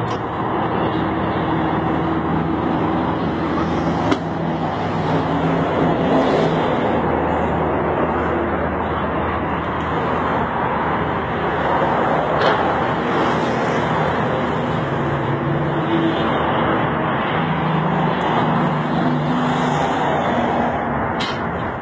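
Steady road traffic noise, vehicle engines running and passing, with a few sharp clicks.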